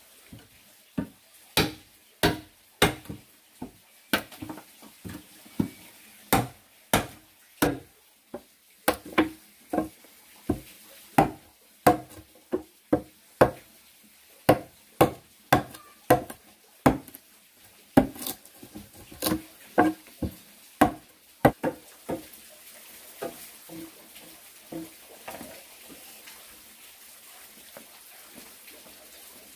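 Repeated sharp knocks of a hand tool striking wood, irregular, about one or two a second, stopping about 22 seconds in, with a few fainter knocks after.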